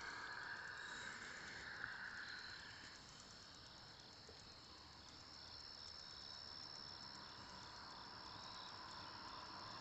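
Faint evening insect chorus of crickets: a steady high trill with a row of short chirps about twice a second. A fainter lower drone fades out about three seconds in.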